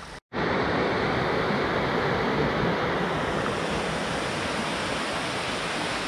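Steady rush of water cascading over rocks, cutting in abruptly after a brief gap at the very start.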